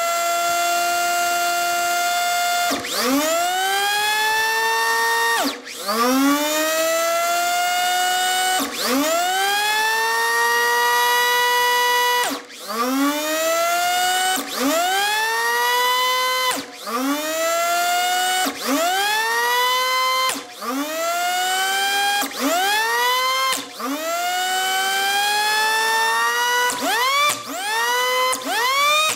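Small universal AC vacuum motor from a Dirt Devil Featherlite, with a stripped impeller, run in reverse from a variac. It gives a high whine that climbs quickly in pitch and levels off, and again and again it breaks off and climbs anew from low, about every two seconds, a dozen or so times.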